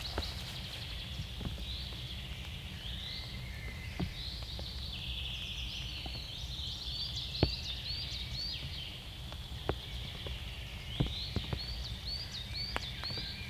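A songbird singing in phrases of quick repeated high chirps, about four a second, over a steady low rumble, with a few sharp taps.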